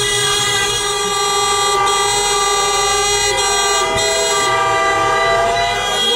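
Several car horns held down together, sounding continuously at steady pitches in celebratory honking.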